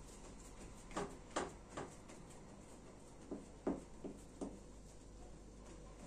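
Oiled hands pressing and patting pizza dough flat on a wooden tabletop: soft dull pats, three about a second in and four more around the middle, over a faint low hum.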